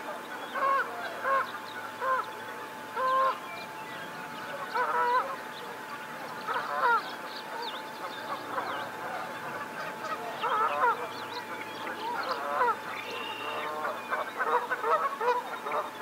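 Geese honking: a series of short calls, coming in clusters of one to several honks and growing busier near the end.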